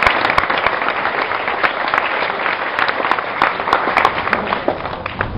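Audience applauding: a dense patter of many hand claps that thins out near the end.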